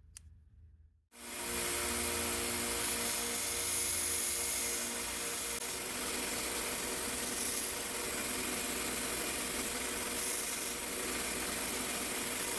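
Belt grinder running, its belt grinding the edge of a stainless steel knife blade flat to take out a wave in it. The steady grinding hiss starts about a second in.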